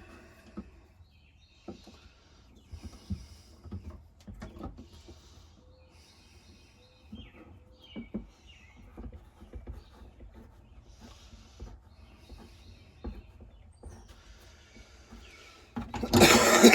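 Scattered light knocks and taps of work on the knife, with faint bird chirps in the background; near the end a power tool starts up loudly.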